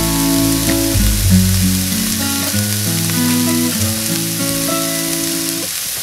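Diced onion and green pepper sizzling steadily in olive oil in a nonstick frying pan, under background music.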